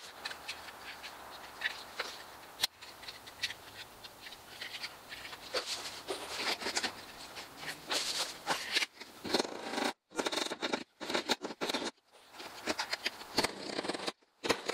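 Aviation tin snips cutting vinyl J-channel trim: a quick run of sharp snips and clicks, with the plastic strip being handled between cuts.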